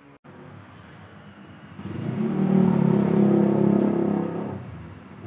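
Exhaust of a BMW E36's M52 straight-six through a newly fitted muffler with twin tips: the engine idles, then is revved up about two seconds in and held for a couple of seconds before dropping back toward idle.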